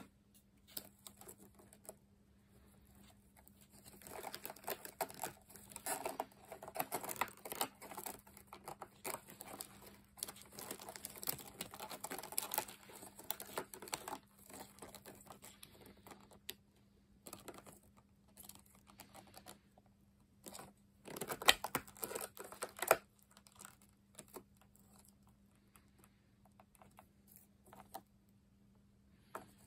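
A Hercules beetle and a Caucasus beetle grappling on a textured mat: dense runs of quick scratches and clicks from their claws and hard shells. The sound is heaviest from about four to sixteen seconds in and again around twenty-one to twenty-three seconds in, with sparser ticks between, over a faint steady low hum.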